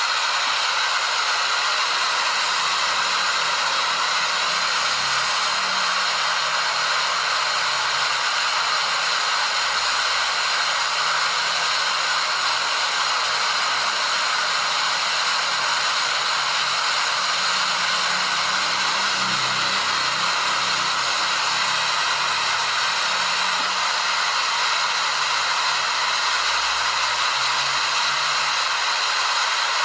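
Waterfall: a steady, unbroken rush of falling water, even in level and strong in the higher range.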